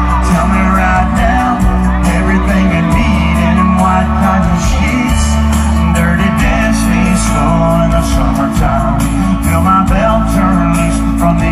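A song playing: sung vocals over a band with guitar, bass and a steady beat, loud throughout.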